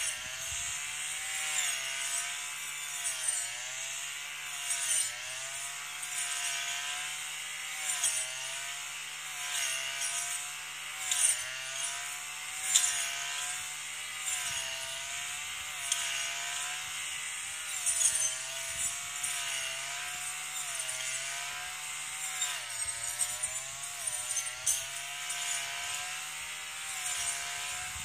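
Engine-driven brush cutter running as it cuts weeds. Its engine pitch dips and recovers every second or two, with occasional sharp ticks.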